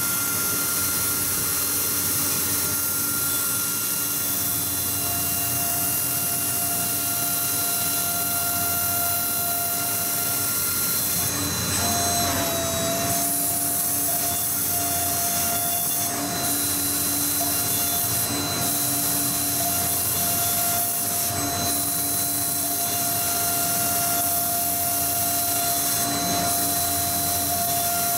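High-speed CNC milling machine cutting aluminium sheet: the spindle whines at a steady high pitch over a hiss of cutting, with the pitch dipping briefly about halfway through.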